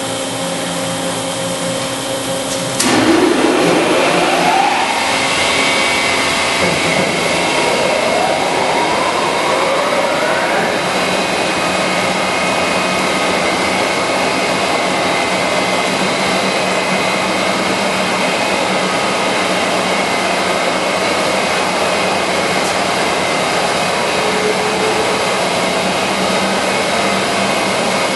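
Monarch Model 62 heavy-duty engine lathe starting up under power about three seconds in, with its 20 HP main drive and geared head giving two rising whines as the spindle comes up to speed. It then runs steadily with a high gear whine.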